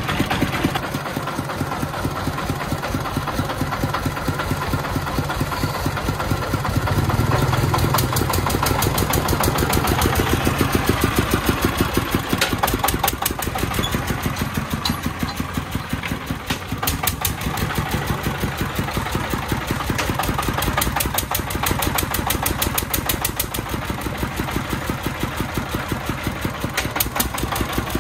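The 33-horsepower single-cylinder diesel engine of a three-wheeled công nông dump truck, running near idle with a steady beat of firing strokes. It speeds up a little about seven seconds in, then settles back a few seconds later.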